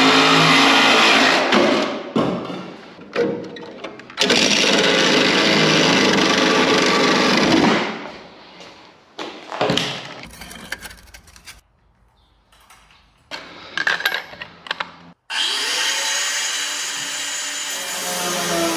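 Angle grinder working the rusted sheet-metal floor of a car body, in several runs of one to a few seconds with short pauses between. Near the end it starts again with a rising whine as it spins up.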